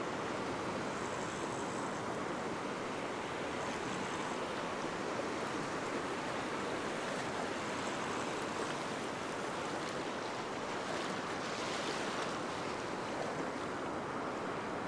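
Surf washing in the shallows: small waves breaking and running around the legs of someone standing in the water, a steady rushing wash.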